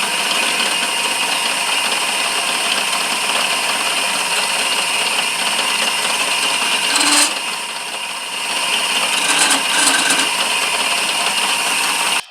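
Lathe running steadily while a walnut handle is turned on it, the cutting noise dipping briefly about seven seconds in before picking up again.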